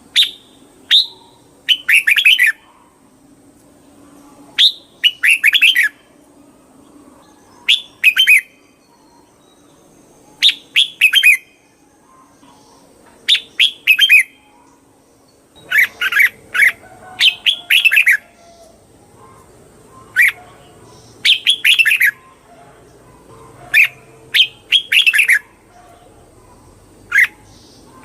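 Red-whiskered bulbul singing. It repeats short phrases of a few quick chirping notes, about one phrase every two to three seconds.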